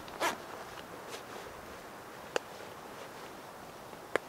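A windproof jacket being fastened and adjusted just after zipping up. There is a short fabric swish right at the start, then two sharp clicks a little under two seconds apart, over a steady faint hiss.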